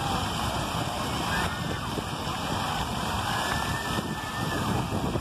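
Splash pad fountain jets spraying and splashing onto wet pavement, a steady hiss of water, with wind rumbling on the microphone.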